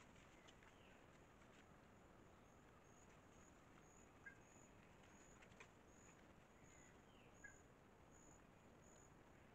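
Faint rainforest ambience: an insect chirping at a high pitch about twice a second, a few brief bird chirps, and three faint sharp clicks.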